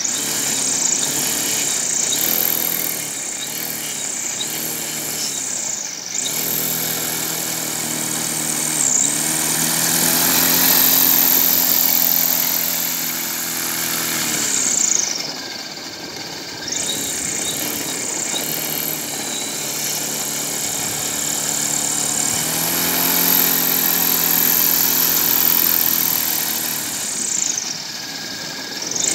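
Electric propeller sled's motor and propeller whirring steadily, its pitch climbing and sinking several times as the sled speeds up and slows down.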